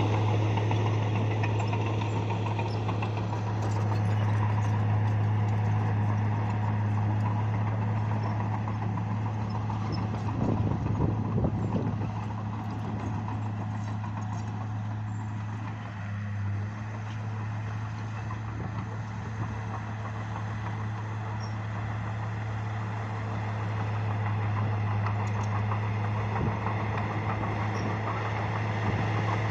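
Bulldozer's diesel engine running steadily with a deep hum, and a spell of clattering about ten seconds in.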